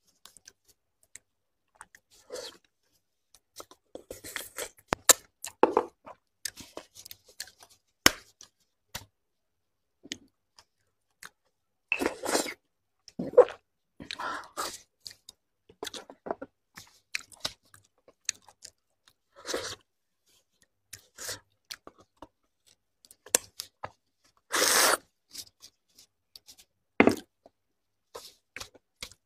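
Close-up eating sounds of sauce-coated beef bone marrow: scattered wet chewing, smacks and clicks at an irregular pace as the marrow is eaten and the bone pieces are handled, with one longer, louder sound near the end.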